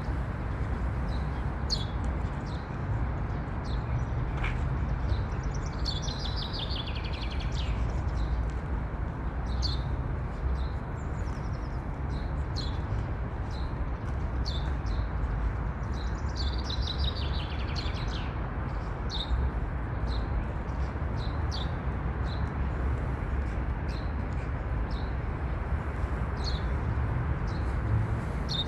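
Songbirds singing: short high chirps repeated throughout and, twice, a longer song of rapid notes falling in pitch. A steady low rumble runs underneath.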